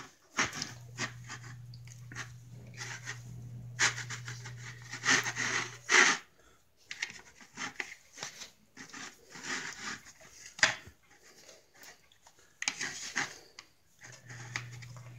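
Kitchen knife sawing back and forth through a freshly baked, still-warm loaf of bread: a series of irregular rasping strokes, bunched into several runs.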